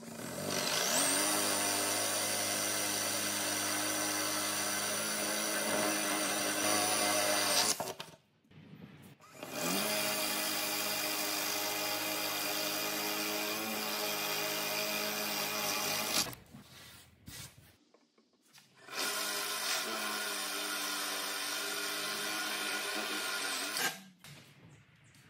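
Cordless drill boring holes in wood with a Diablo Forstner bit, three runs of several seconds each. Each time the motor whines up to speed, holds a steady pitch while the bit cuts, then stops.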